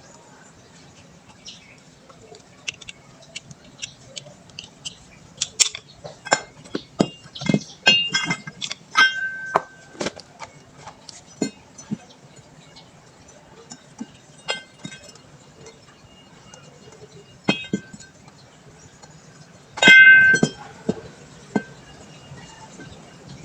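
Metal tools and parts clinking and clattering during brake caliper work, in scattered knocks with short ringing tones; the loudest clatter comes near the end.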